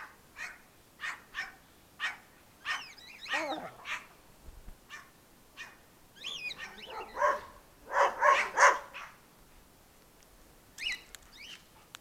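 Dogs at play, giving short barks and whines off and on, with the loudest run of barks about eight seconds in.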